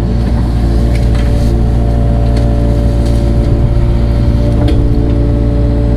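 Engine of an earthmoving machine running steadily under light load while it pulls small stumps, with a few brief sharp cracks.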